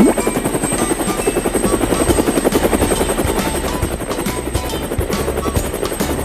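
Helicopter rotor sound effect, a rapid, steady chopping, as a cartoon helicopter lifts off and flies.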